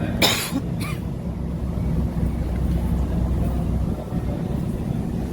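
Steady low drone of a ferry's engines. Two short rushes of noise cut across it in the first second, the first a little louder.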